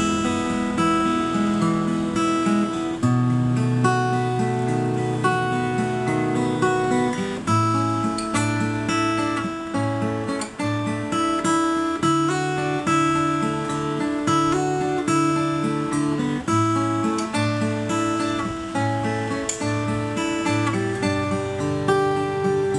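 Acoustic guitar played fingerstyle: plucked chords and melody notes over a bass line that moves from note to note.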